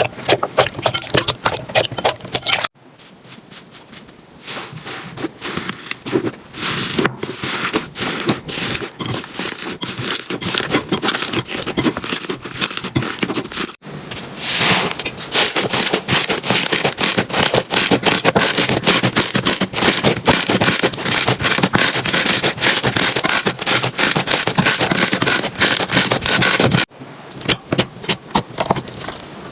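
Hands squeezing and stretching slime: a dense run of small sticky crackles, pops and clicks. The sound changes abruptly three times as one slime clip cuts to the next, with a quieter, softer stretch near the start.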